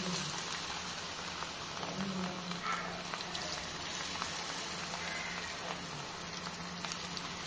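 Batter-coated cauliflower pieces deep-frying in hot oil: a steady sizzle with faint crackles as more pieces are dropped in.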